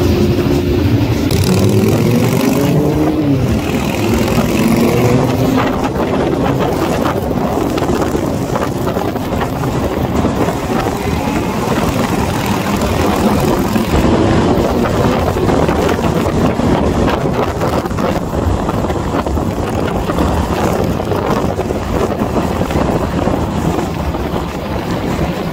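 Engines of a large column of motorcycles riding together, heard from one of the bikes, with wind rushing over the microphone. In the first few seconds an engine's pitch rises and falls as it is revved and eased off.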